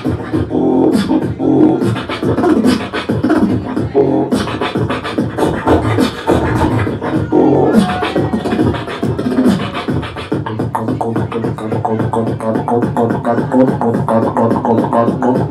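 Live beatboxing through a handheld microphone: a fast, unbroken stream of mouth-made drum hits with pitched vocal tones woven through the beat.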